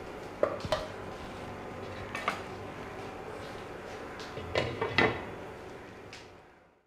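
Several clinks of utensils and a glass lid against a metal cooking pot. The loudest pair comes about four and a half and five seconds in, as the glass lid is set down on the pot. A steady hiss lies under them and fades out near the end.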